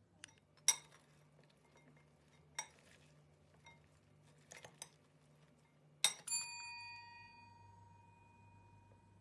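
Cutlery clinking against dishware a few times. The loudest strike, about six seconds in, leaves a ringing tone that fades over a few seconds.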